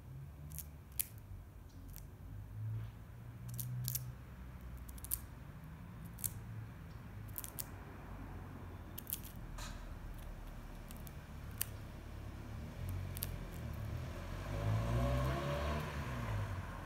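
Crow pecking at a peanut on asphalt: sharp, irregular clicks and cracks of its beak striking the shell. A low rumble under it swells near the end.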